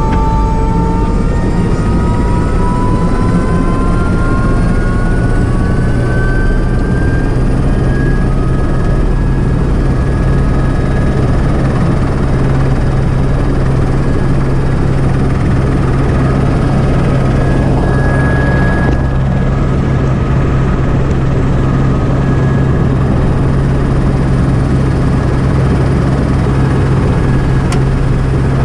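Helicopter turbine engine and rotor running on the ground, heard from inside the cockpit. A whine rises in pitch over the first eight seconds or so as the engine speeds up, then holds steady over a steady low drone.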